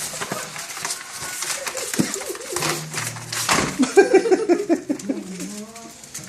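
Young puppies whimpering and yipping in short high calls, with a quick run of whines about four seconds in, over scattered clicks and scuffles.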